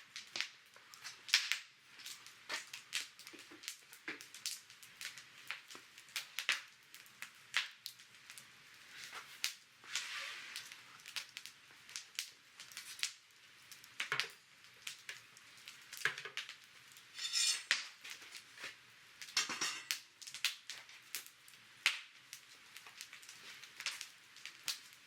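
Wood fire crackling in a brick fire pit, with sharp, irregular pops and clicks several times a second.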